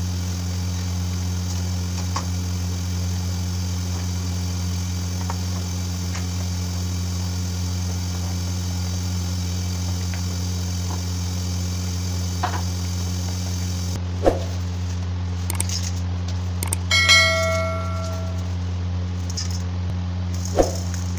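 A steady low electrical-sounding hum, with a few light clicks. About seventeen seconds in, a short bell-like chime rings for about a second.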